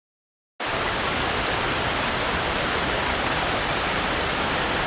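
A steady, even rushing noise, spread from low to very high pitch, that starts suddenly about half a second in and holds an unchanging level.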